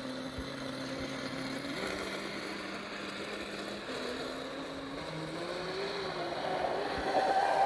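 Traxxas M41 electric RC catamaran's brushless motor running out on the water, a steady whine whose pitch jumps up about two seconds in, drops near the middle and rises and falls again as the throttle changes. Its note is full enough that it sounds like it's gas powered.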